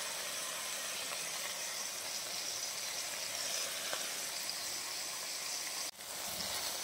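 Chicken pieces and cauliflower frying in a pan, a steady sizzle that drops out briefly near the end.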